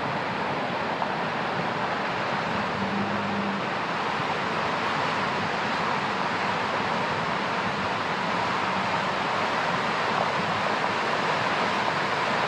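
Flood-swollen creek rushing, a steady dense rush of fast muddy water over rocks that grows a little louder toward the end.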